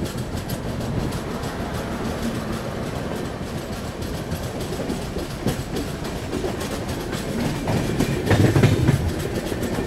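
Moving passenger train heard from an open coach doorway: steady rumble with wheels clattering over rail joints while a locomotive-hauled train passes on the next track. It gets louder about eight seconds in.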